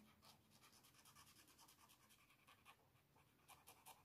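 Near silence: room tone with faint, quick ticks.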